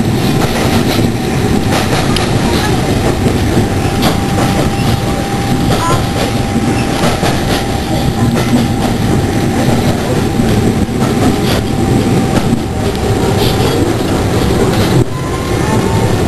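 Heard from inside a moving railway passenger coach: a steady rumble of wheels running on the track, with irregular clicks and clatter and a faint steady whine.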